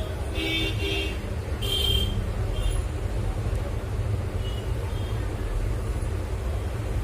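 Steady low rumble of road traffic, with a few short horn-like toots in the first three seconds.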